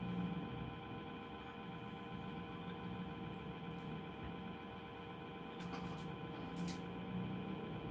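A steady droning hum made of several sustained tones held throughout, with a few faint clicks about two thirds of the way in.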